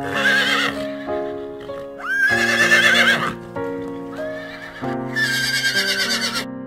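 Horse whinnying three times, each a shaky, wavering neigh of about a second, over soft keyboard background music.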